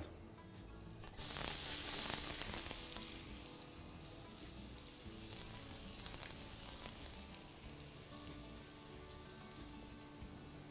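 Onion tipped into hot oil in a pan, sizzling loudly as it hits about a second in. The sizzle fades over the next couple of seconds, swells again briefly around the middle, and settles to a quieter steady frying.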